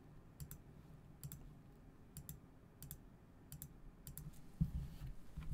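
Computer mouse button clicking about seven times, each click a quick press-and-release pair, clicking the shuffle button of a web card-shuffler page.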